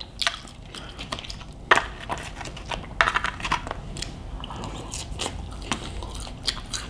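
Close-miked chewing of loaded fries, with irregular sharp wet mouth clicks and smacks.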